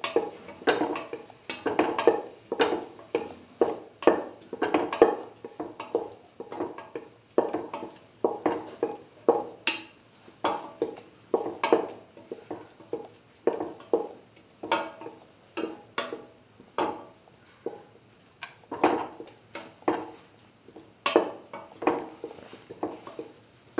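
Spatula stirring a thick beetroot-and-shallot paste in a stainless steel pan, scraping and knocking against the pan in repeated strokes, about one or two a second.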